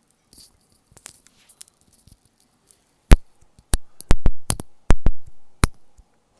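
Popping candy crackling in the mouth close to the microphone: faint scattered crackles at first, then from about three seconds in roughly ten sharp, loud pops.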